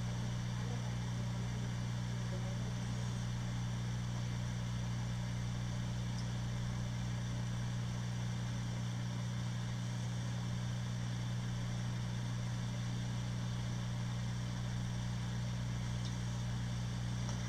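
Red Sea Max 130 reef aquarium's equipment running: a steady low hum with a constant hiss over it.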